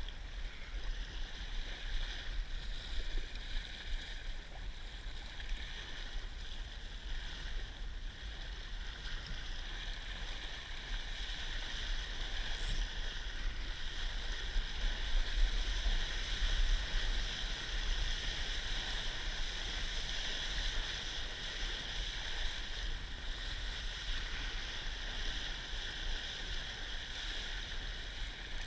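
Water rushing and hissing along the hull of a Laser dinghy sailing fast in strong wind, with wind buffeting the camera's microphone as a low rumble. The rush grows louder about halfway through, then eases a little.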